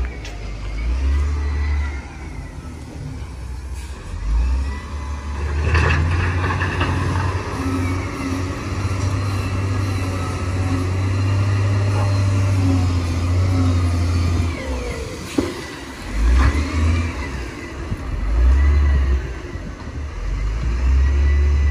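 Heavy diesel earth-moving machinery running under changing load, the engine rumble swelling and easing, with a long sustained pull in the middle. Two sharp metallic knocks come about six seconds in and about fifteen seconds in.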